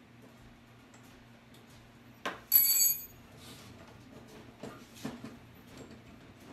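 Small metal clicks and taps from a chrome mixer tap's fittings as it is fitted onto a ceramic washbasin, with one short, high electronic tone of about half a second a little over two seconds in.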